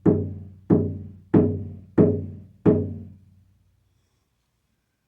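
A handmade 13-inch deer-hide frame drum (spirit drum) struck in a steady beat, about one and a half strokes a second, each stroke ringing out and fading. Five strokes, the last about two and a half seconds in, after which the drum rings away.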